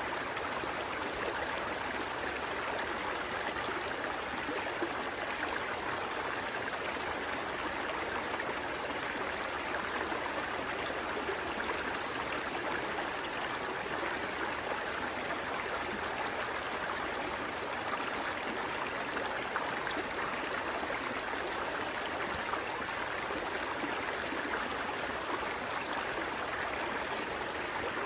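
Flowing water, a steady rush with no change throughout.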